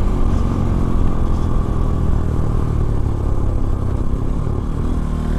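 Modified Bajaj Pulsar NS200's single-cylinder engine running under way at a fairly steady throttle, heard from the bike.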